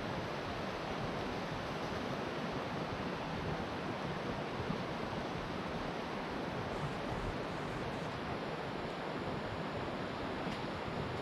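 A steady, even rushing noise with no breaks or separate events.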